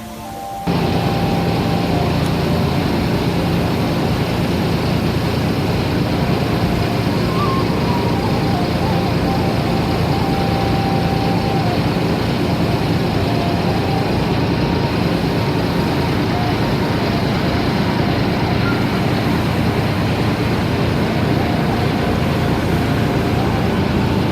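Loud, steady engine noise with a low hum and a rushing hiss. It cuts in suddenly just under a second in and holds at an even level.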